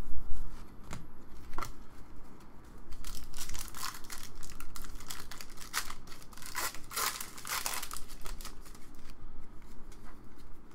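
A trading card pack's wrapper being torn open and crinkled by hand: a dense run of crackling that peaks just past the middle. A few light clicks of cards being handled come before it.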